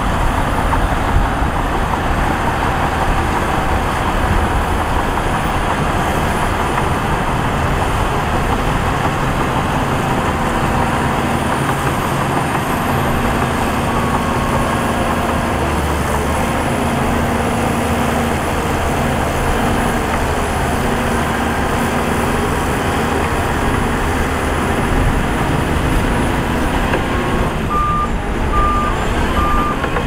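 Heavy diesel earthmoving machinery running steadily. Near the end a reversing alarm starts beeping at an even pace, a bit faster than one beep a second.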